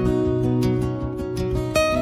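Background instrumental music with plucked-string notes in a steady rhythm.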